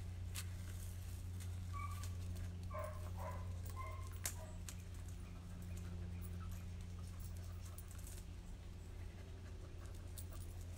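A dog moving about, with a few light clicks and several brief high squeaky whines around the middle, over a steady low hum.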